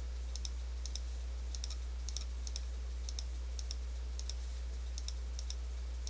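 Computer mouse clicking: about ten quick pairs of sharp clicks, roughly two pairs a second, over a steady low electrical hum.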